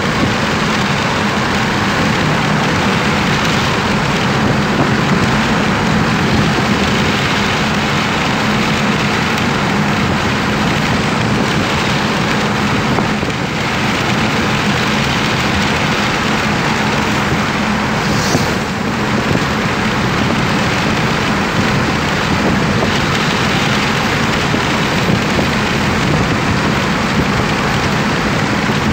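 Steady road and wind noise inside a moving car's cabin at highway speed: tyres on asphalt and rushing air, with a low hum underneath.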